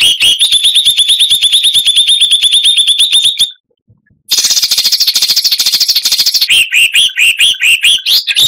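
Recorded songbird song of rapid-fire chattering notes: a fast run of sharp repeated notes, about a dozen a second, breaks off briefly around three and a half seconds in. A dense, higher trill follows, then a run of quick down-slurred notes.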